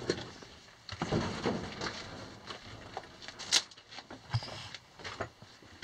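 Footsteps crunching and scuffing over loose rock rubble, with scattered clicks and knocks and one sharper click about three and a half seconds in.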